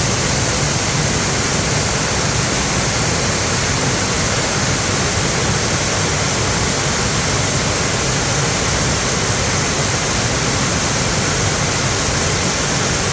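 Mountain stream rushing steadily and strongly over rocks, swollen by rain.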